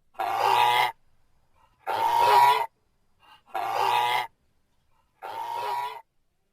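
An animal calling four times, each call under a second long with a steady pitch, evenly spaced.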